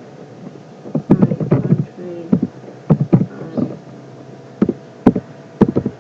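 Computer keyboard typing: quick runs of keystroke clicks about a second in and about three seconds in, then a few single key presses near the end.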